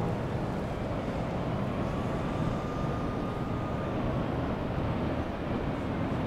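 City street ambience: a steady rumble of traffic, with a faint high whine rising and falling slightly in the middle.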